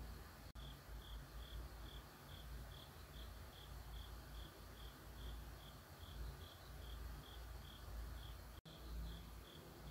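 Faint, regular high chirps, about three a second, over a low background hum. The chirping begins about half a second in, after a momentary dropout, and there is another brief dropout near the end.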